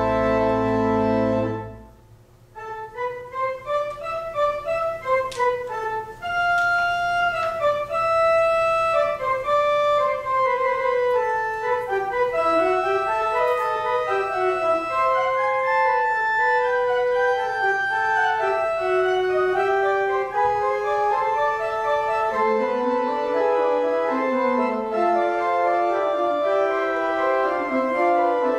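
Organ music: a held full chord ends about two seconds in, then a new passage starts with a quick running melody line of held notes, joined by a lower moving part near the end.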